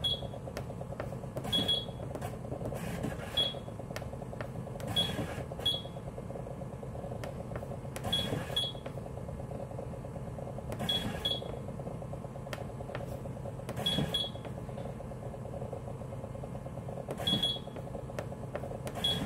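Short high electronic beeps, single or in quick pairs, every couple of seconds, each with a click, over a steady low mechanical hum: the device is being adjusted but will not respond.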